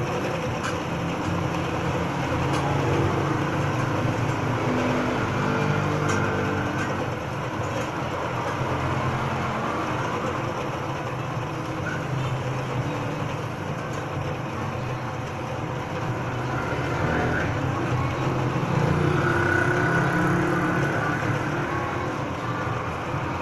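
Electric bench grinder running steadily while a thin steel saw blade is held against the wheel to grind its teeth, with a steady grinding scrape that grows louder twice, a few seconds in and again past the middle.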